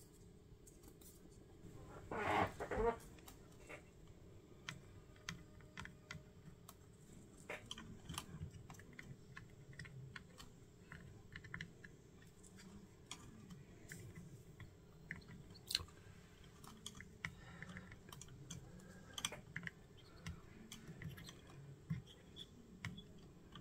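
Small clicks, taps and scrapes of an electronic component, wire and soldering iron being handled over a circuit board, with a louder crackling scrape about two seconds in.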